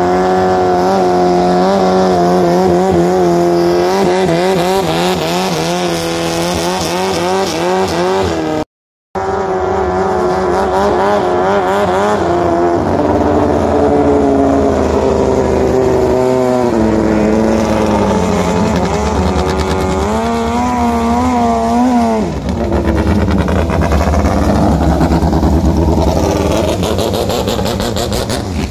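Long-tail racing boat's engine running hard at high revs, its pitch wavering up and down as the throttle changes. The sound breaks off for half a second about nine seconds in, and the revs fall away sharply about twenty-two seconds in before the engine picks up again.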